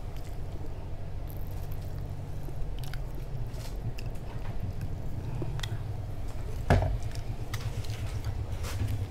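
Small handling sounds of a plastic squeeze bottle of ketchup being squeezed over fried food in a foam takeout box, scattered clicks over a steady low hum, with one louder knock about two-thirds of the way through.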